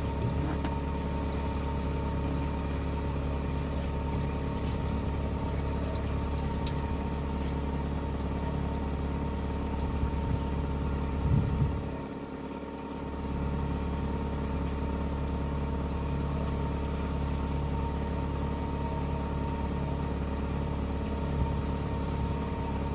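Boat motor running steadily, a low hum with a faint steady whine over it, with a couple of brief knocks about halfway through.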